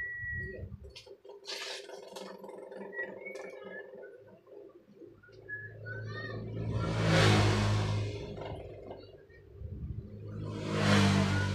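Two motor vehicles pass by, one about six to eight seconds in and another near the end, each swelling up and fading away. Short high chirps, like small birds, sound in the first few seconds over a faint steady hum.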